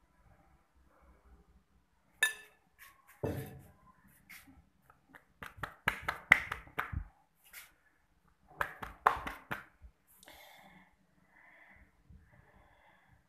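Metal spoon scooping mashed-potato filling from a bowl and spreading it onto rolled dough, with scattered clinks and taps in small clusters. Near the end, soft rustling as hands press a dough round over the filling.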